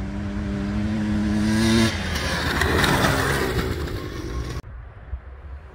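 Dirt bike engine at high revs, climbing in pitch, then breaking about two seconds in into a loud, rough rush of noise. It cuts off abruptly near the end.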